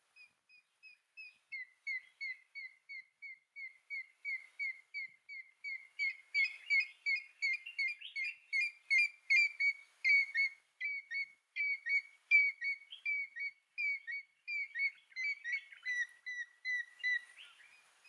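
African grey hornbill calling: a long series of short, piping whistled notes, about three a second. The notes get louder after the first couple of seconds and come denser and rougher from about six seconds in.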